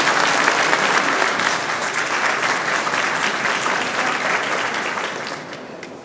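Audience applauding in a hall, a dense patter of many hands clapping that thins out and fades near the end.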